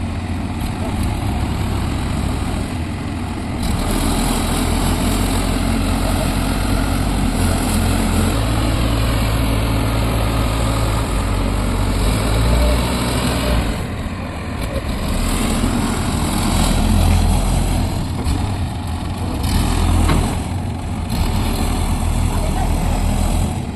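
Diesel engine of a heavy construction machine running continuously under work. It gets louder a few seconds in and dips briefly a couple of times later.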